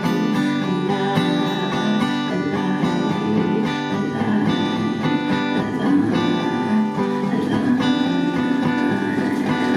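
Acoustic guitar strumming chords steadily as an instrumental passage, with no singing.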